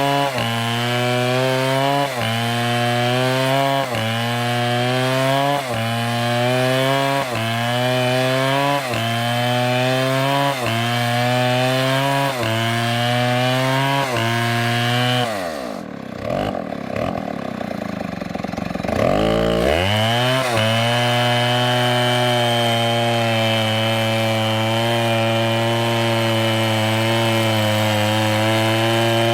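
STIHL MS720 two-stroke chainsaw at full throttle cutting wood, its pitch dipping and recovering in a regular rhythm about every second and a half as it works in the cut. About fifteen seconds in the engine falls to a low idle for a few seconds, then revs back up and runs steadily at high speed.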